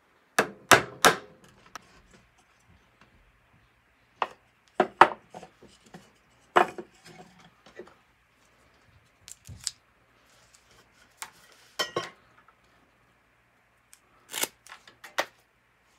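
A string of separate sharp clicks and clacks from hand work at a workbench: clamps being worked and wooden blocks knocked together. Near the end, a hand tool snips at a length of manila rope.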